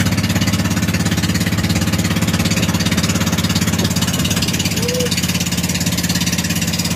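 Pumpboat (motorized outrigger boat) engine running steadily underway, with a fast, even pulse.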